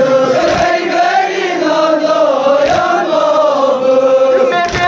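Voices chanting a Kashmiri noha, a Shia lament, in a slow, wavering melody, with a dull thump about every two seconds.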